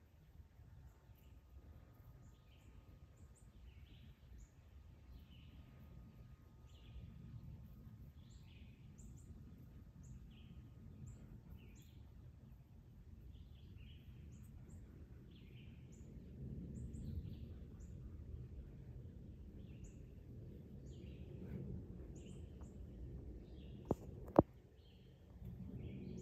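Small wild birds chirping, short calls repeating about once a second over a low steady outdoor rumble. Near the end, two sharp knocks, the loudest sounds here.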